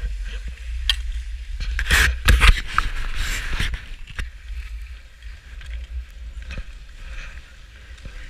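Skis scraping and hissing over packed snow on a downhill run, with wind rumbling on the GoPro's microphone. A louder cluster of scrapes and knocks comes about two seconds in.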